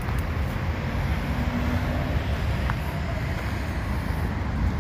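Steady low outdoor rumble of wind on the microphone and road traffic, heaviest in the bass.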